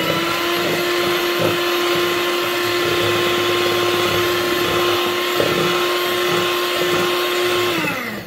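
Handheld electric mixer running, its beaters whisking a thin egg-and-butter batter in a plastic bowl: a steady motor whine that falls in pitch and stops near the end as it is switched off.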